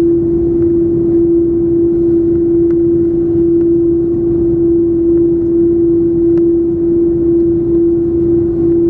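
Cabin noise of an Airbus A330-300 taxiing on its GE CF6-80E1 engines: a steady low rumble with one constant tone held throughout, and a few faint ticks.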